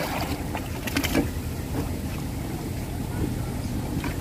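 Bamboo punting pole splashing into shallow water as a wooden canoe is poled along, a few short splashes and knocks, the loudest about a second in, over a steady low rumble of wind on the microphone.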